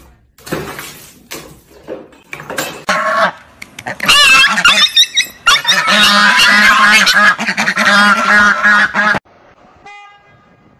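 Goose honking loudly and repeatedly, in a long run of harsh calls that cuts off abruptly about nine seconds in. A few knocks and thumps come before the honking.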